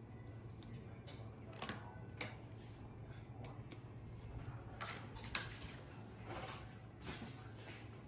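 Scattered small clicks and taps, a few sharper ones about two and five seconds in, over a faint steady low hum.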